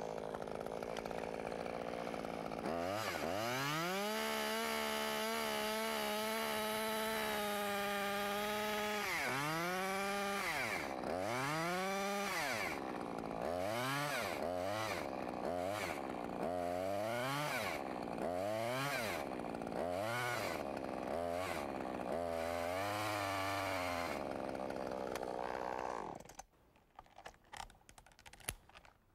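Gas chainsaw cutting through a rigged tree limb behind its face notch: it revs up from idle about three seconds in, runs at high revs in the wood, then dips and picks up about once a second as the cut goes on. Near the end it drops back to idle and stops, followed by a few light knocks. Tension on the rigging line keeps the bar from pinching in the cut.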